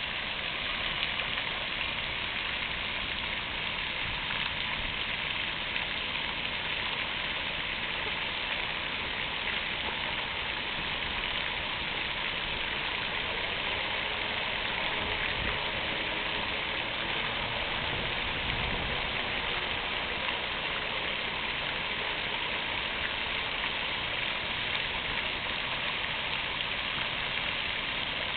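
Fountain water splashing steadily, a continuous even rush of falling water. A faint low rumble rises under it about halfway through.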